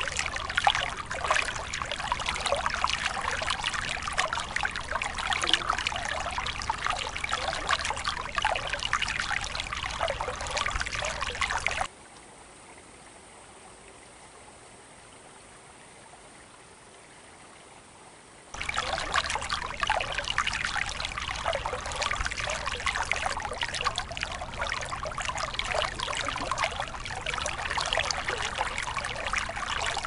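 Creek water trickling and babbling in a steady, splashy rush. For about six seconds in the middle it drops away to a faint hiss, then comes back.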